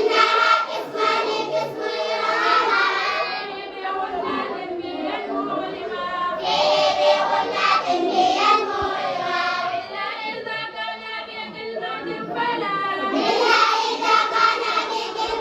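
A group of children singing together in unison, in phrases that swell and fall back.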